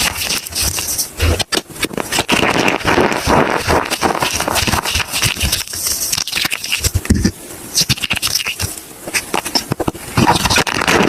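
Soap being broken and crushed, a dense, irregular run of crackles and crunches that eases off for a couple of seconds in the latter half before picking up again.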